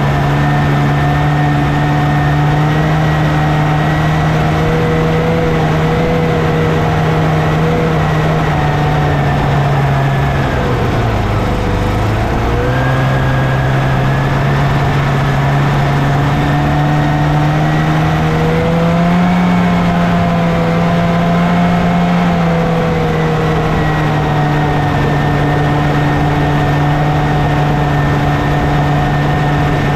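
1979 Scorpion TKX 440 Whip snowmobile's two-stroke engine running under load while breaking trail through snow. Its pitch drops as it eases off about a third of the way in, picks back up, and climbs a little higher about two-thirds through before settling again.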